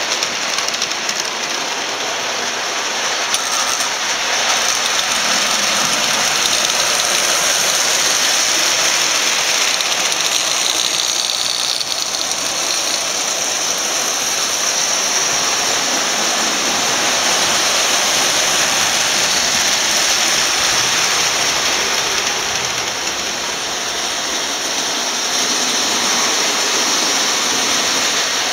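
Vintage Marx tinplate toy trains running on metal three-rail track: a steady whirring rattle of small electric motors and wheels on the rails, growing louder twice as a train passes close by.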